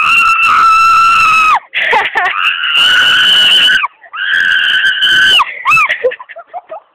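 A young person screaming: three long, loud, high-pitched screams, each held at a steady pitch, followed by shorter broken cries near the end.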